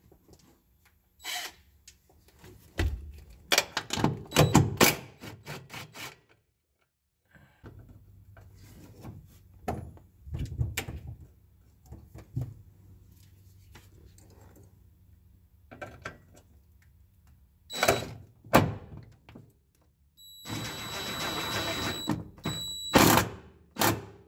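Hand tools knocking and clicking against metal as a bolt is fitted and tightened to mount brake bias valve hardware, in irregular clusters of sharp knocks. Near the end, a steady whirring burst of about two seconds, then a few more knocks.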